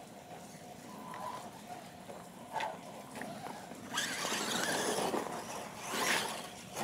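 Radio-controlled monster trucks driving through mud and grass, motors and tyres running; the noise gets louder about four seconds in.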